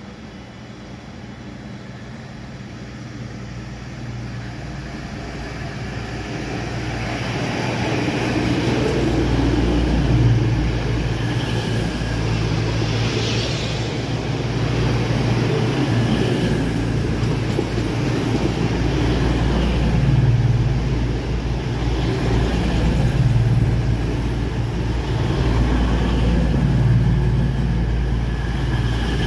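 A train running through the station: a low rumble that grows louder over the first eight seconds or so as it approaches, then holds loud and steady with a deep hum and a few swells as it passes.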